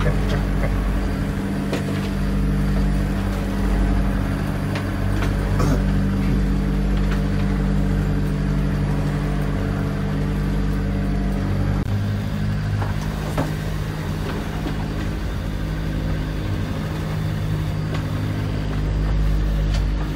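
Motorsailer's inboard engine running steadily, heard from inside the wheelhouse; its note shifts slightly about twelve seconds in. A few knocks sound as the boat works in a rough sea.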